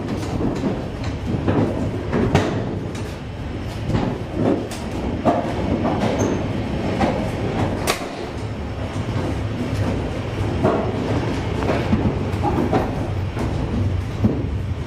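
ED4M electric multiple unit running along the track, heard from inside its vestibule: a steady rumble of wheels on rail with irregular clattering clicks and knocks, one sharp click about eight seconds in.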